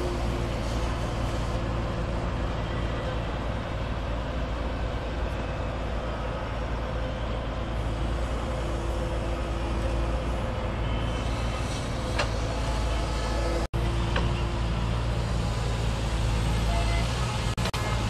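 Engine of an amphibious excavator-dredger running steadily with a low, even drone while it works in weed-choked water. The sound cuts out for an instant about two-thirds of the way through.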